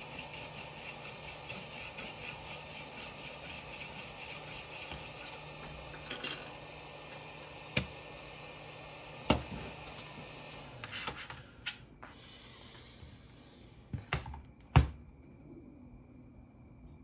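Hot air rework station blowing a steady rush of air with a low hum, with a fast rhythmic scraping of about four strokes a second over the first few seconds. The airflow dies away about eleven seconds in, followed by a few sharp clicks and knocks, the loudest near the end.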